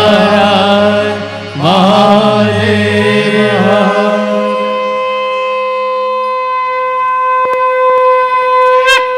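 Devotional chaupai sung by a voice over a harmonium-like reed drone. It ends in a single note held steady for about five seconds.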